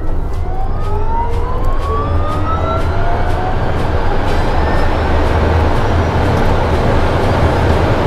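Rimac Nevera's electric motors under hard acceleration: a whine of several tones that rises steadily in pitch over the first few seconds, while tyre and wind noise builds into a loud, steady rush.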